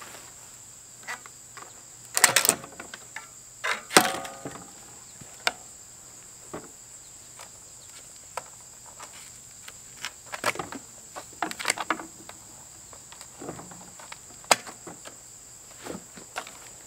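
Plastic strapping bands being cut and pulled off an auger attachment crated on a wooden pallet: scattered sharp snaps, clicks and rustles, with two louder cracks about two and four seconds in, the second ringing briefly like a strap end striking metal.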